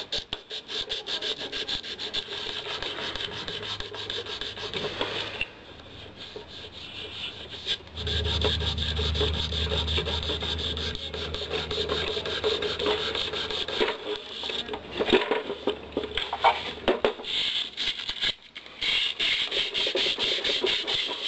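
Rolled-up 150-grit sandpaper rubbed in rapid back-and-forth strokes along the wooden barrel channel of a Marlin 925 .22 rifle stock, with a couple of brief pauses. The wood is being sanded away where it touches the barrel so that the barrel will free float.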